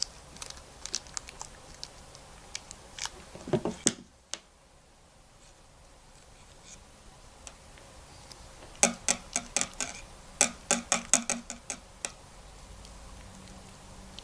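Small clicks and taps from hands handling an airfield lighting primary cable connector and its parts while greasing it. A few scattered in the first seconds, then a quick run of sharp clicks about nine to twelve seconds in.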